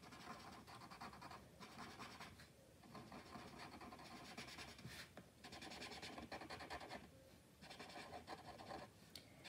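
Felt-tip marker scratching faintly on paper as small shapes are coloured in: runs of quick short strokes with brief pauses between them.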